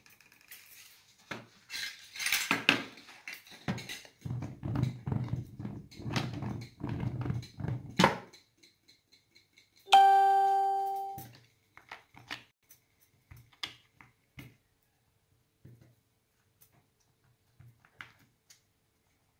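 A single clear bell-like ding about ten seconds in, starting sharply and fading away over about a second. Before it come scattered clicks and knocks, and only faint ticks follow it.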